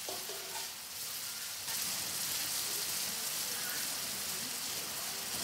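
Chicken khichuri boiling hard in a large metal pot over a wood fire: a steady hissing and bubbling, getting louder about two seconds in.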